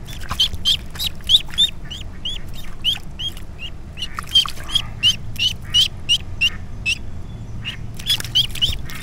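Duckling peeping over and over in short, high calls, about three a second with a brief pause near the end: the distress peeps of a duckling held in the hand with a lure's hook caught in its beak. A steady low rush of spillway water lies underneath.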